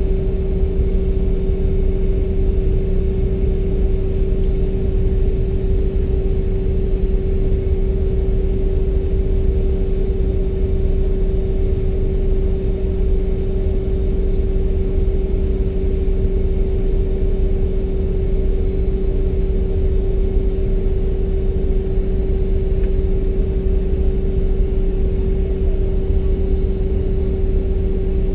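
Steady drone inside the cabin of a Bombardier CRJ-700 parked at the gate: a strong constant hum tone over a low rumble and air hiss.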